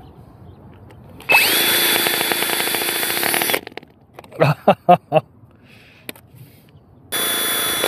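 Electric drill spinning over a tiny two-stroke nitro glow engine to start it: a run of about two seconds with a whine rising as it spins up, then a second run starting near the end. In between come four short pops as the engine tries to fire but does not catch.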